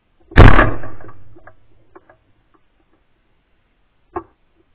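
One 12-gauge shotgun shot about half a second in, fired at a flushing bird, very loud and ringing away over a second or so. A single short, much quieter sharp crack follows about four seconds in.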